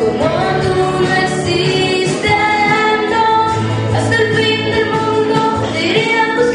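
A young girl singing solo into a microphone, holding long notes, over a low instrumental accompaniment.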